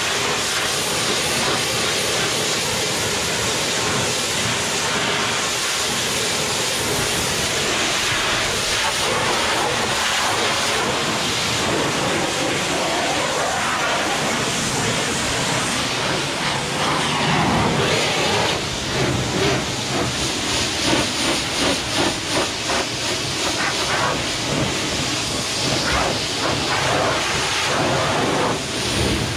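Hot-water pressure washer jet hissing as it blasts the steel bars and floor of calf pens. The hiss is steady at first, then wavers and surges unevenly in the second half.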